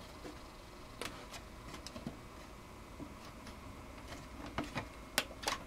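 A few faint, sharp clicks and ticks, scattered unevenly over quiet room tone, with the two loudest near the end.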